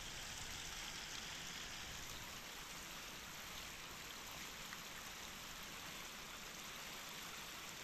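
Shallow river running over rocks in a small riffle: a steady, even rushing of water.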